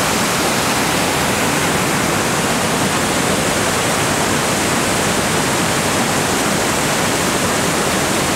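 Water rushing over rocks in a steady, loud, unbroken wash of noise, like a cascade or rapids.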